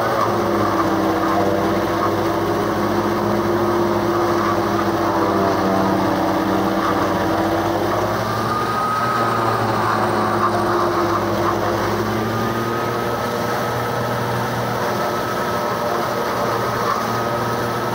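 Fiat 640 tractor's diesel engine running under load, driving a PTO forage chopper that is cutting green fodder stalks and blowing the chop out of its spout. The pitch dips and recovers a couple of times as the engine pulls down under the load of stalks being fed in.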